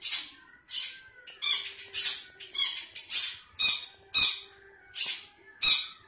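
Long-tailed shrike (cendet) giving a run of short, harsh, rasping calls, about a dozen in six seconds, some in quick pairs. These are the calls that bird keepers take as the bird wanting to mate.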